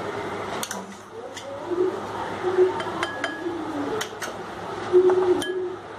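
Metal spoon clinking and tapping against a glass mixing bowl as thick yogurt is scooped in, a few separate light knocks.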